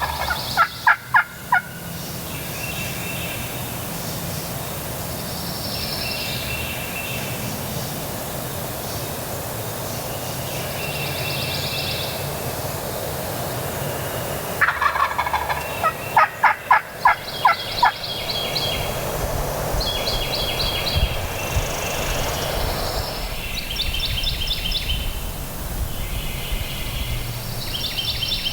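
Wild turkey gobbling, a loud rapid rattling call heard twice, at the very start and again about fifteen seconds in. Small songbirds chirp between the gobbles.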